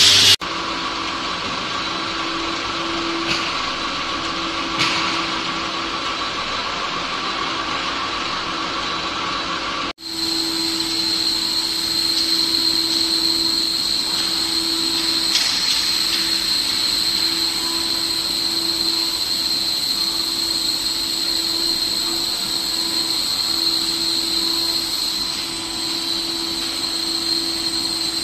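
CNC router running, a steady high whine over a lower hum. The sound drops out for an instant about ten seconds in and comes back a little louder.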